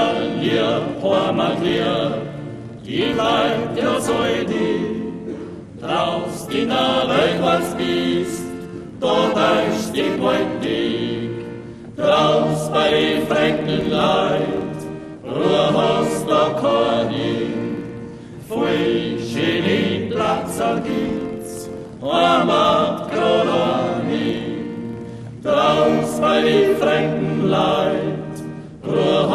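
A small men's vocal group singing a dialect folk song in close harmony, accompanied by acoustic guitar. The song goes in phrases of about three seconds, each starting strongly and fading, with short breaths between them.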